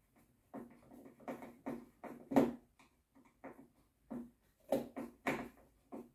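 Hand screwdriver driving screws that fix the handle to the plastic frame of a Nilfisk Core 140 electric pressure washer: a run of irregular short clicks and scrapes, two of them louder, about two and a half and five seconds in.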